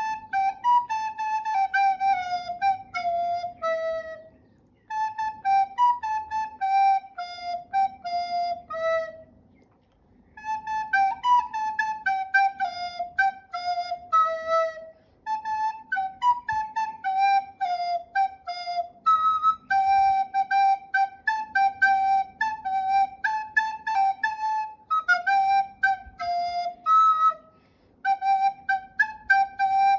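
Solo recorder playing a flowing melody, one note at a time, in phrases separated by short pauses for breath.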